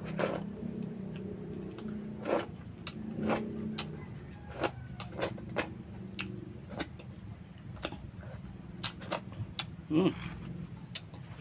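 Eating sounds from hand-eating: a string of short, sharp lip smacks and mouth clicks as bits of food are picked up with the fingers and eaten, over a low steady hum.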